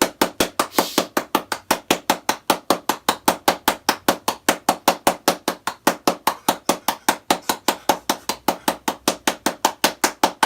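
Rapid, even knocking or tapping, about five sharp knocks a second, steady throughout.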